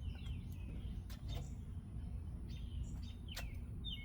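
Small birds chirping, with repeated short downward-sweeping calls, over a steady low background rumble. A single sharp click about three and a half seconds in.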